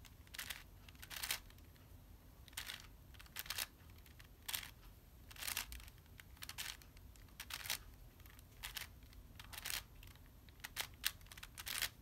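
A 6x6 Rubik's cube being turned by hand: faint plastic clicks and clacks of its layers rotating, coming singly and in quick groups at irregular intervals, as the edge-parity algorithm is worked through.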